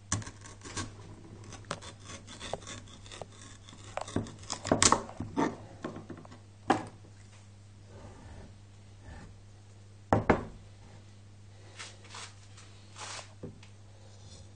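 A large kitchen knife cutting into a raw butternut squash on a wooden cutting board: irregular scraping and rubbing, with sharp knocks of the knife and squash against the board, the loudest about a third of the way in and again about ten seconds in.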